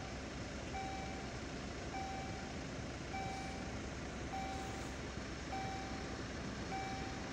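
Level crossing warning signal sounding, a short electronic ding repeated about every 1.2 seconds, over steady road noise.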